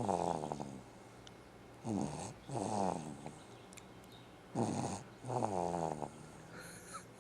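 Snoring in a steady breathing rhythm, about one breath every two and a half to three seconds. Each breath is a short snore followed at once by a longer, rattling one.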